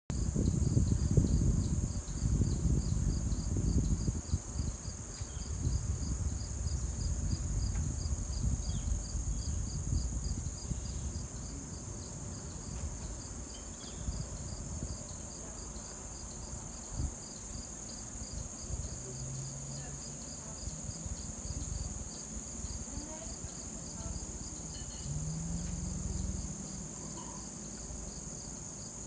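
Crickets and other insects calling in a steady high chorus, with a regular pulsing chirp running under it. A low rumbling noise is strongest in the first ten seconds and then settles.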